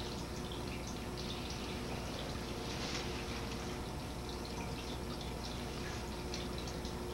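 Steady background hiss with a constant low hum and a faint steady tone, sprinkled with faint crackles; no single distinct event.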